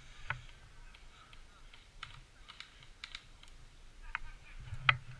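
A few scattered sharp clicks and snaps at irregular intervals, the loudest near the end.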